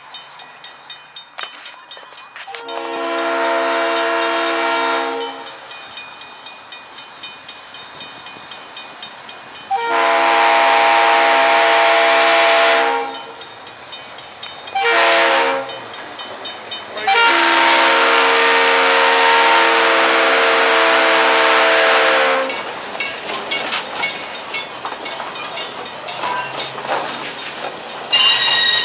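Diesel locomotive's air horn sounding the grade-crossing signal: two long blasts, a short one and a final long one, over the steady ringing of the crossing bell. After the horn, the train's wheels clack over the rail joints as the loaded flatcars roll past, with a sudden loud noise near the end.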